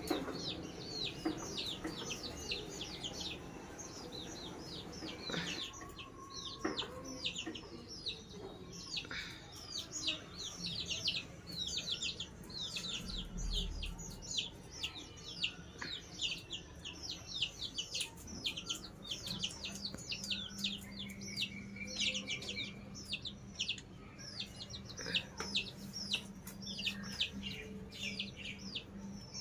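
Young chicks peeping almost without pause, a rapid stream of short, high chirps that each drop quickly in pitch.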